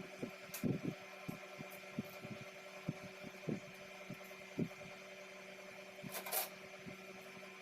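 A steady electrical hum with scattered soft knocks, and one short hiss about six seconds in.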